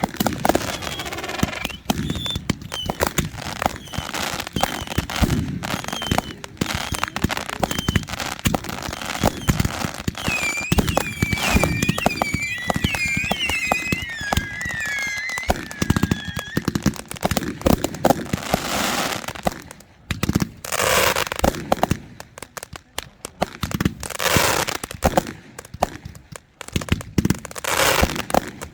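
Consumer fireworks going off: dense crackling and popping throughout, with a run of high whistling glides about ten seconds in and a few hissing bursts near the end.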